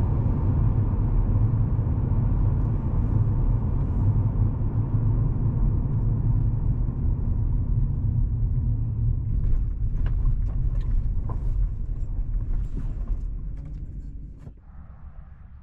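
Low, steady rumble of a car on the move, fading away about fourteen seconds in, with a few light clicks and knocks as it dies down.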